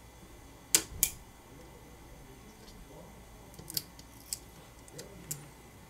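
Flex cable connectors inside a OnePlus 7 smartphone popping off their board sockets as they are pried up with a pry tool: two sharp small clicks about a second in, then several more scattered through the second half.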